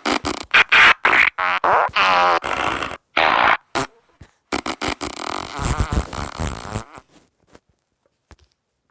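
Fart sounds in quick succession: a string of short blasts, some longer and pitched with a rippling tone, stopping about seven seconds in.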